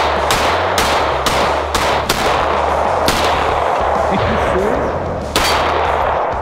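Hi-Point YC9 9mm pistol firing about seven shots. The first five come quickly, about two a second, then there is a single shot about a second later and a last one after a longer pause near the end.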